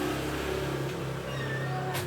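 A small engine running steadily at idle, with faint cat meows rising and falling over it.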